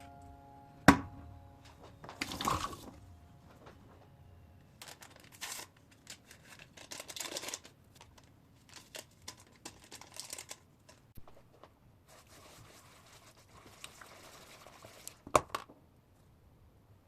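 Kitchen handling sounds: a sharp knock about a second in, several short spells of rustling and crinkling, and two quick knocks near the end.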